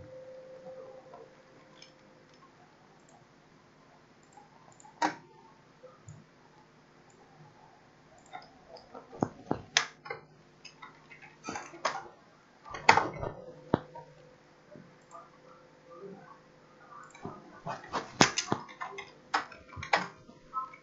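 Typing on a computer keyboard: scattered key taps, single and in quick runs, over a faint steady hum.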